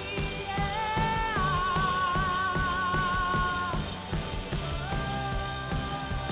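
Live worship band playing a slow song, with a singer holding long notes over steady drums and bass.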